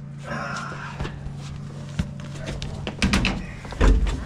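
Clunks and knocks of a VW Fastback's front bucket seat being set down onto its floor rails, loudest about three and four seconds in, over a steady low hum.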